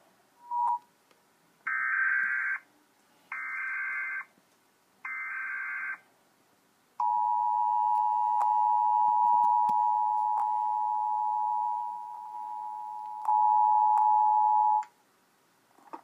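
Mock Emergency Alert System tones played through computer speakers: a short beep, then three one-second bursts of SAME digital data tones, then the two-note EAS attention tone held for about eight seconds. The attention tone drops in level partway and comes back louder before cutting off.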